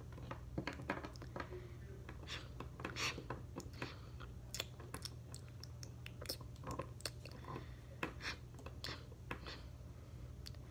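Irregular light clicks and taps of hard plastic animal figurines being moved, pressed together and set down on a tabletop.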